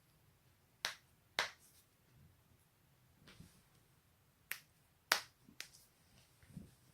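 Joints cracking: sharp pops, a pair about half a second apart near one second in and another pair around four and a half to five seconds, with a few fainter clicks between.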